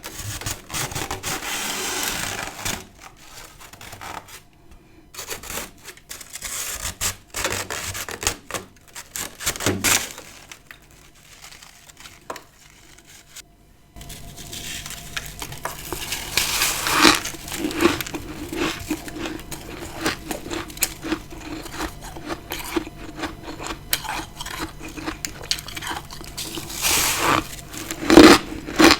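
Fluffy freezer frost scraped and crunched up close: a rustling, scraping stretch at the start, scattered crisp crackles, and loud crunches about 17 and 28 seconds in.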